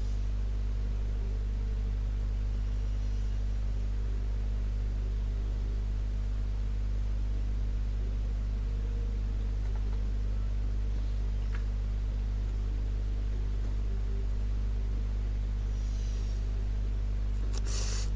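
Steady low electrical hum with a faint hiss. A brief rustle comes near the end.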